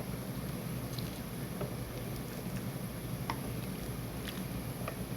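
Pot of chicken baeksuk broth heating on the stove and starting to boil: a steady bubbling, pattering noise with scattered light pops over a low hum.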